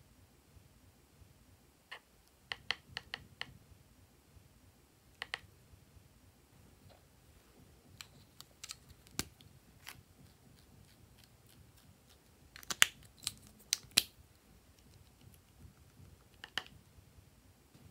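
Small hard plastic parts clicking and snapping in scattered clusters, with the loudest run of clicks about two-thirds of the way through: caps of glitter glue tubes and little heart-shaped plastic containers being opened and handled.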